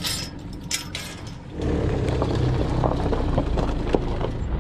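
A few sharp metal clinks from a farm gate's chain latch being worked. About a second and a half in, the steady low sound of a vehicle running takes over, heard from inside the cabin, with small ticks and knocks.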